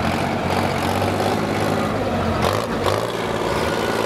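Light Pro pulling tractor's engine running at the end of a pull, the tractor standing still on the sled; a few sharp pops about two and a half seconds in, after which it settles to a steady idle.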